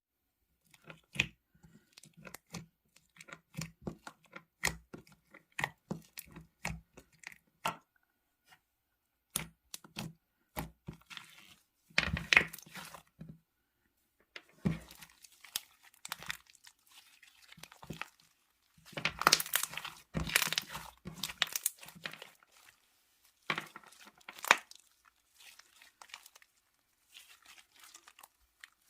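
Slime being played with by hand, giving sharp irregular crackles and pops, with denser bursts of crackling about twelve seconds in and again around twenty seconds.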